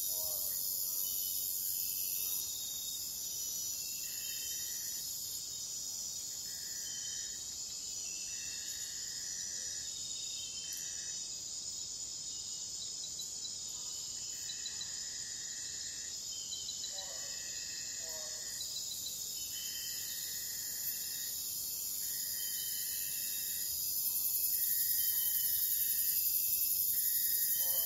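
Night-time Amazon rainforest insect chorus: many crickets and other insects make a dense, continuous high trilling, with a lower trill coming in repeated bursts of about a second each. A few faint lower calls come through about two-thirds of the way in. The chorus grows louder near the end.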